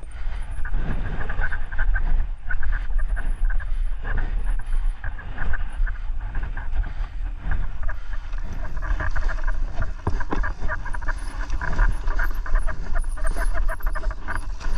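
Mountain bike descending a rough dirt forest trail: tyres rumbling over roots and loose ground, with continual knocks and rattles from the bike and wind buffeting the camera microphone.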